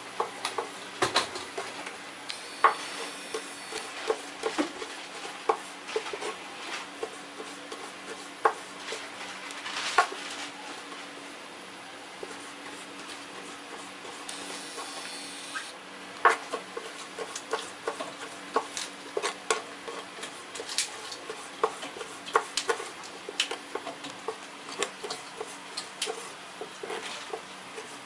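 Kitchen knife slicing raw gurnard into thin sashimi strips on a wooden cutting board: irregular sharp knocks of the blade meeting the board, with a pause of a few seconds about halfway, over a steady low hum.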